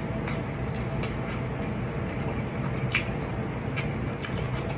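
A metal spoon clicking and scraping against a plastic takeout container as food is scooped out, in short scattered clicks over a steady low hum.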